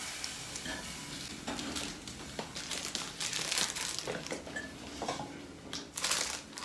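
Parcel packaging crinkling and rustling in irregular bursts as a small mailer and the packet inside it are unwrapped by hand.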